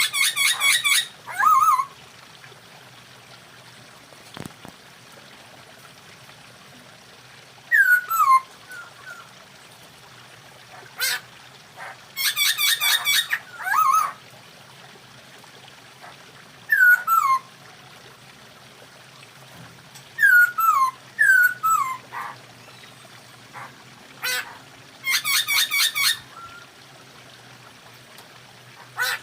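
Poksay hongkong laughingthrushes calling: three bursts of fast, harsh chattering, each lasting a second or two, come at the start, around the middle and near the end. Short falling whistled notes sound in the gaps between them.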